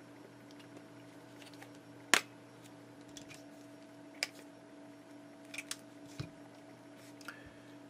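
Sharp plastic clicks as the Oral-B Vitality toothbrush housing is pressed and twisted back together and tools are handled on the table. There are about half a dozen clicks, the loudest about two seconds in, over a faint steady hum.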